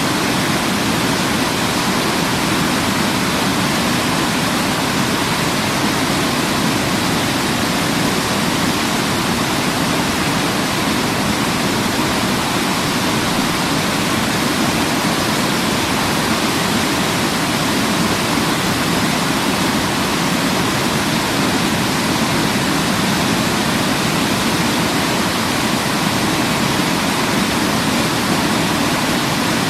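Waterfall, a steady unbroken rush of falling water with no change in level.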